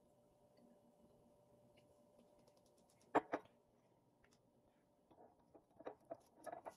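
A glass bottle and a glass measuring cup being handled on a granite countertop: two sharp knocks about three seconds in, then a run of lighter clinks and taps near the end.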